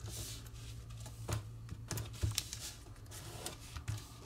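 A square of kami origami paper being folded and creased by hand: a soft rustle as the paper slides at first, then a scatter of crisp crackles and taps as the fold is pressed flat, over a low steady hum.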